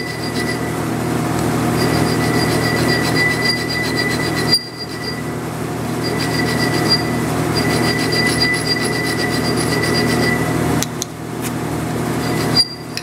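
TIG welding arc on an aluminium forging, a steady harsh buzz as filler rod is fed in. The arc stops and restarts briefly a few times, about four and a half seconds in and twice near the end.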